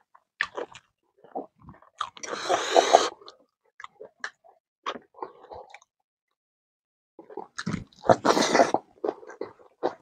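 A person eating by hand: close, wet chewing and lip-smacking in short clicks, with two longer, louder noisy stretches about two and eight seconds in.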